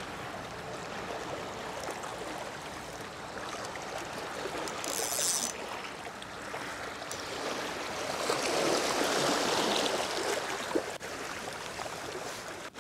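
Sea water washing against the rocks of a breakwater, a steady wash that swells louder about eight seconds in, with a brief high hiss about five seconds in.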